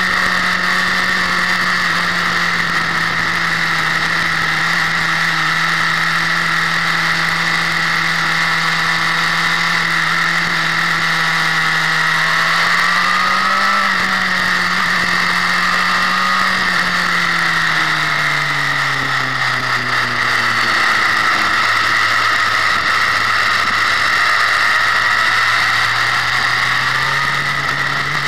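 Sport motorcycle engine running under way at steady revs. Its pitch rises a little about halfway through, falls over a few seconds and holds lower, then climbs again near the end.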